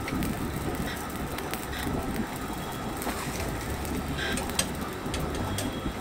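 A spatula scraping and tapping a few times against a nonstick frying pan as it works under the edge of a cooking rice-flour pancake, over a steady low rumble from the gas burner.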